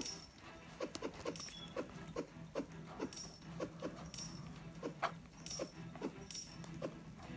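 Sound effects from a mobile game on a tablet: a quick string of short blips and swishes, about two a second, over a low steady hum.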